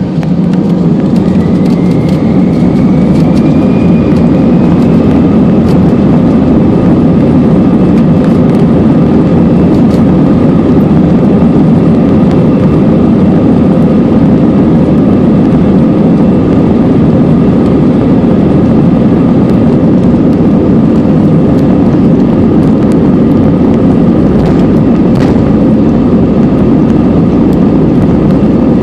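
Airbus A320 jet engines at high power, heard from the cabin over the wing: a loud, steady rumble with a faint whine that rises in pitch over the first few seconds as the engines spool up for the takeoff roll.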